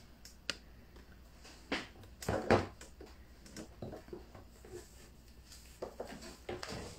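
Scattered light taps and clicks of a spoon and a cake-pop stick against a small bowl as a cake pop is dipped and coated, with a few louder knocks about two and a half seconds in.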